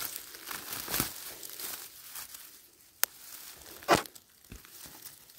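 Rustling and crackling of forest-floor vegetation, with a sharp click about three seconds in and a louder snap about a second later.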